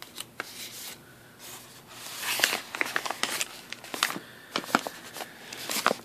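Plastic Ricola cough-drop bag crinkling as it is handled, a run of sharp crackles and rustles that gets busier and louder about two seconds in.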